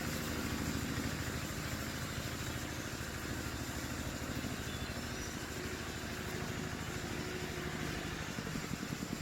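An engine running steadily, with a rapid low pulsing.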